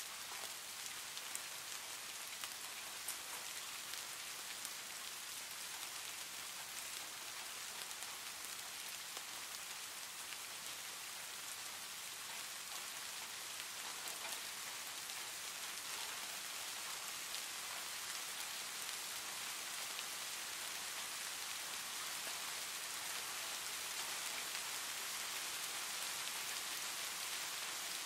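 Steady rain falling, an even hiss with faint patter of drops, growing slightly louder toward the end.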